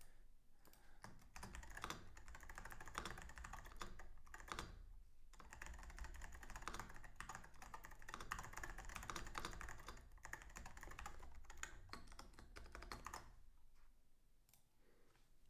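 Faint typing on a computer keyboard: quick runs of keystrokes with a short pause about four to five seconds in, stopping about thirteen seconds in.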